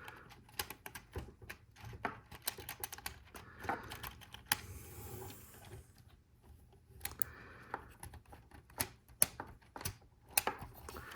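Small plastic Lego Technic pieces clicking and rattling as they are handled and pressed together, in irregular light clicks.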